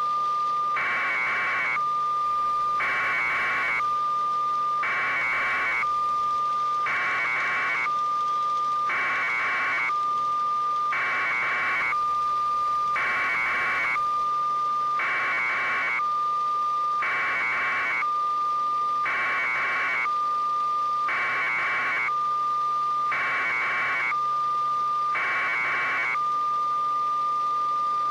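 Electronic alarm: a steady high tone sounding without a break, with a harsher buzzing beep about a second long repeating roughly every two seconds.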